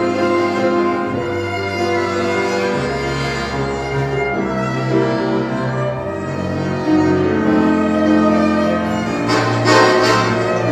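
Live chamber quartet of violin, accordion, piano and double bass playing a tango, the violin prominent over sustained chords and bass notes. It grows louder about seven seconds in, with sharp accented strokes near the end.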